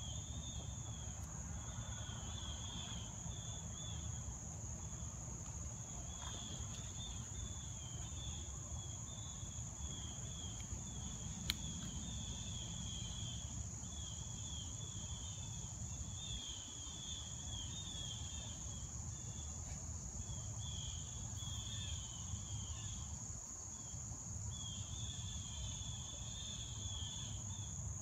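Insect chorus: a steady high-pitched drone, with a lower chirring trill in bursts of a few seconds that come and go, over a low background rumble. One sharp click a little before halfway.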